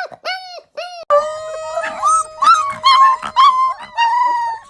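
Puppies vocalising: two short yelps, then from about a second in one puppy holds a long steady howl while others whine and yip over it.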